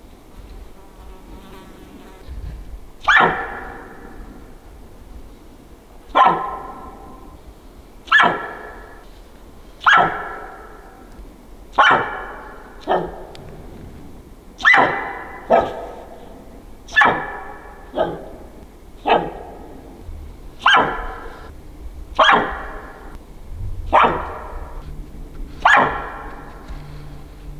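Spike bull elk giving a long string of short, sharp alarm barks, about fifteen of them, one every second or two, beginning about three seconds in.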